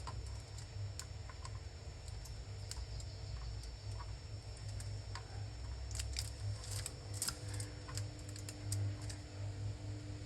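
Scattered small clicks and taps of hand tools working on a circuit board while a chip is soldered in place, thickest about six to nine seconds in, over a steady low hum.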